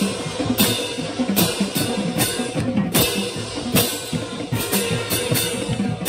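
Marching band playing loudly with drums, and a pair of Sabian AAX marching cymbals crashed close by on the beat, regularly a little faster than once a second.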